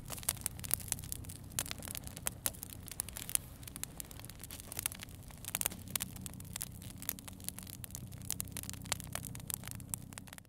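Wood campfire crackling, with many sharp pops and snaps at irregular intervals over a low steady background.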